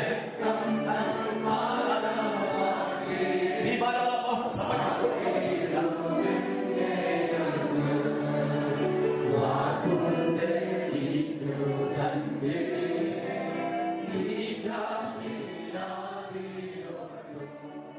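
Choir singing, slowly fading out near the end.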